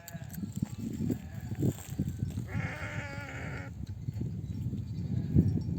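A sheep bleats once, a long wavering call about two and a half seconds in. Under it runs a constant low jumble of thumps and rustling from the flock.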